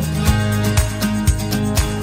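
Background music with strummed acoustic guitar over a steady beat, about two beats a second.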